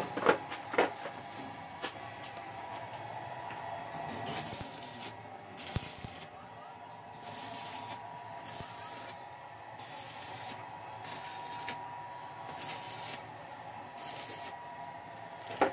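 Arc welding: a series of short tack welds fixing steel wire mesh to a steel frame, each a crackling hiss of about half a second, some eight in all, starting about four seconds in. A few sharp knocks come before them.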